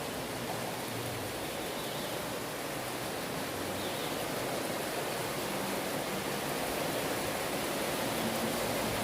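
Heavy rain falling steadily, a dense even hiss that swells slightly toward the end.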